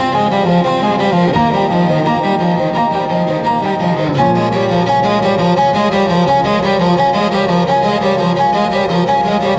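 Slow, sustained cello music, bowed notes in several voices moving from chord to chord, with a low note entering about four seconds in.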